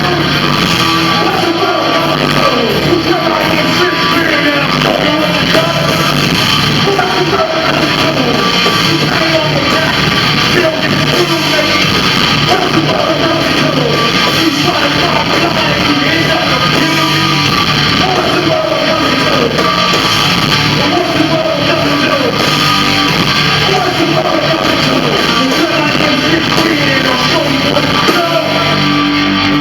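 Live rock band playing loud, with a singer's voice over electric guitar.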